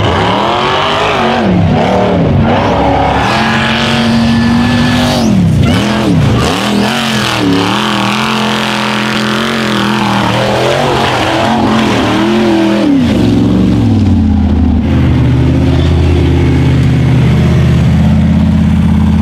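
Rock bouncer race buggy's engine revving hard again and again as it climbs a steep dirt hill, the pitch rising and falling with each burst of throttle. About thirteen seconds in it settles to a steadier, lower pitch.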